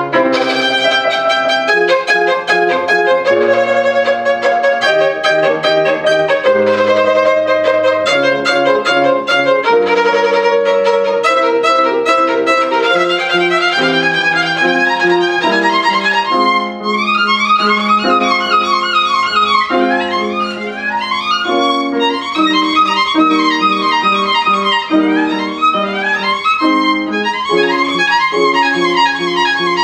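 Violin playing with piano accompaniment. From about halfway through, the violin plays fast runs of notes sweeping up and down.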